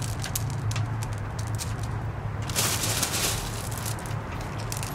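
Expanded clay pebbles (hydroton) clicking and shifting against one another in a plastic net pot as they are pressed around a plant cutting, with a louder rustle a little past halfway. A steady low hum sits underneath.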